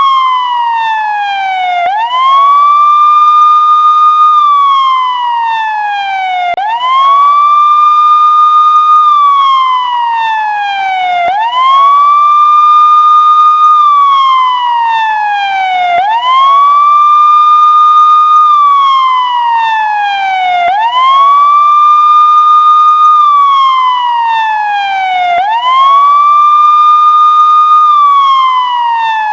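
Electronic siren sounding a slow wail. In each cycle it sweeps quickly up to a high tone, holds it for about two seconds, then slides steadily down. The cycle repeats about every four and a half seconds, six rises in all.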